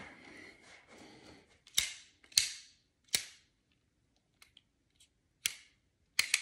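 Milwaukee Fastback folding utility knife being flipped open and shut by hand: five sharp snaps as the blade swings against its stop, spread over about four and a half seconds, with a few faint ticks between them. Soft handling rustle comes before the first snap.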